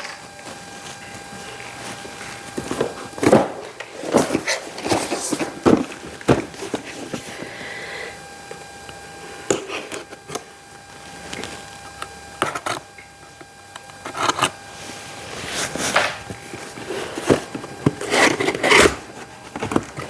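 Cardboard box and packaging being opened and handled: scattered scrapes, rustles and knocks, the loudest clusters around a third of the way in and again near the end.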